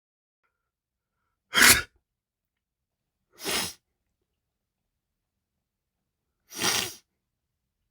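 Three separate sneezes, each a short sharp burst with dead silence between them. The first is the loudest, the second comes about two seconds later and is quieter, and the third is a little longer, about three seconds after that.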